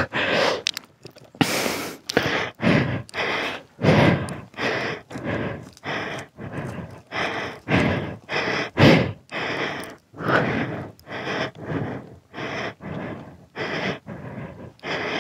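A person panting hard close to the microphone: short, rapid breaths in and out, evenly repeated.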